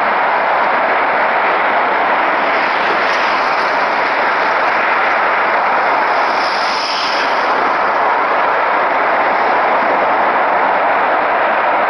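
Burning gas jetting from a ruptured gas pipeline: a loud, steady rushing noise that does not let up.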